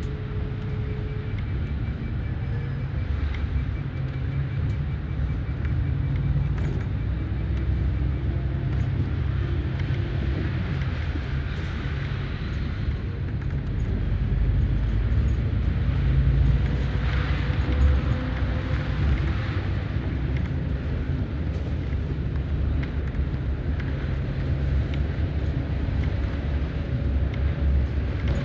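Highway coach in motion heard from inside the cabin: a steady low diesel engine and road rumble, growing somewhat louder around the middle.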